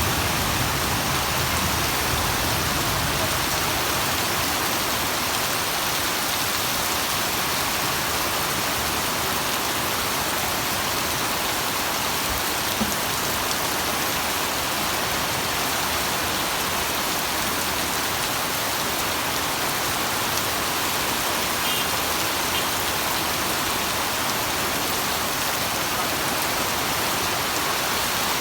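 Heavy rain pouring down steadily, a dense, even hiss of rain on surfaces.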